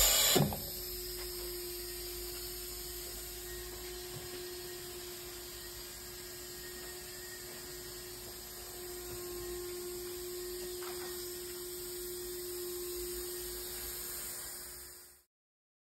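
Steady electrical hum with one faint held tone, fairly quiet and unchanging; it cuts off about fifteen seconds in.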